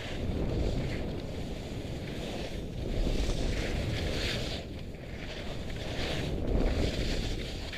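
Wind buffeting the microphone of a helmet-mounted camera while skiing downhill, with the hiss of skis carving on snow swelling and fading about every two seconds as the turns go.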